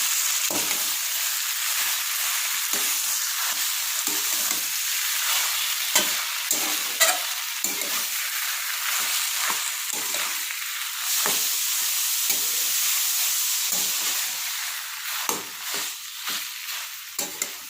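Grated amla frying in ghee in a kadhai, sizzling steadily while a spoon stirs it, with irregular scrapes and knocks against the pan. The sizzle dies down somewhat near the end.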